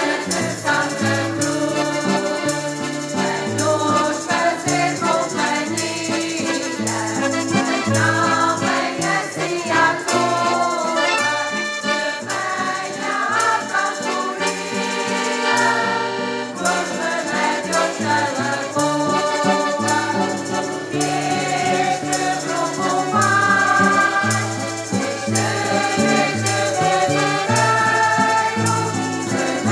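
A mixed group of men's and women's voices singing a folk song in chorus, accompanied by two accordions and an acoustic guitar. The accordions carry a low bass line that steps to a new note every second or so.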